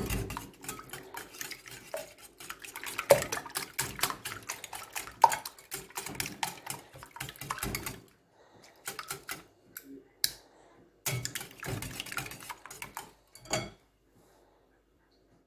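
A utensil beating eggs in a bowl, clinking rapidly and repeatedly against its sides for about eight seconds. Then a few scattered clinks and knocks, which stop near the end.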